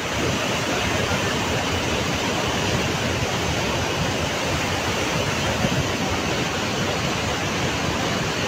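Muddy floodwater of a flash flood after a cloudburst rushing and churning in a swollen torrent, a steady loud wash of water noise.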